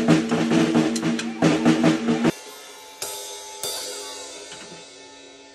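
Drum kit played with sticks by a small child: fast, uneven hits on the drums and cymbals that stop abruptly about two seconds in. Then two single cymbal strikes ring out and slowly fade.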